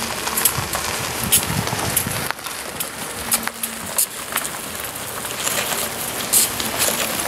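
Diesel freight locomotives running slowly past: a low engine rumble under a crackling noise, with scattered sharp clicks.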